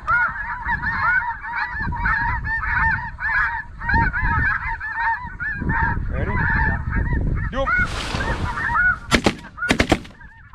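Speck (white-fronted goose) calling: a rapid, continuous string of high yelps over low wind rumble. The calling stops about eight seconds in, followed by a brief rushing noise and several sharp cracks near the end.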